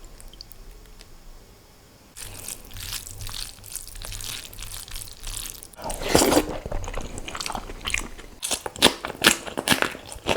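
Close-miked eating sounds: a person chewing and biting into egg curry with rice and green chillies. Crunchy clicks start about two seconds in and grow louder around the middle.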